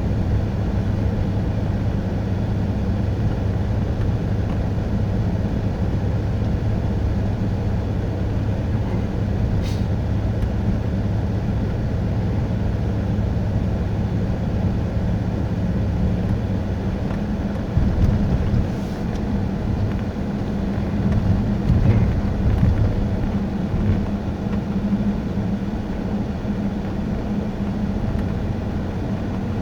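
Car interior noise while driving on a snowy, slushy road: a steady low engine hum with tyre and road noise. The road noise grows rougher and louder for several seconds a little past halfway through.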